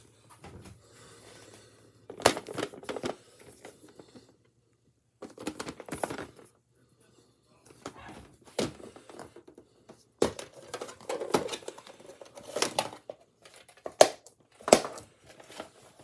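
Things being rummaged through and moved about by hand: bursts of rustling and crinkling with sharp plastic clicks and knocks, broken by short silent gaps. The loudest two clicks come about two-thirds and three-quarters of the way through.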